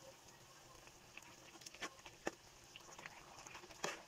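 Faint clicks and light scraping of a metal spoon stirring a watery mix of grated potato, cabbage and semolina in a non-stick pan, with a few sharper ticks about two, two and a half and four seconds in.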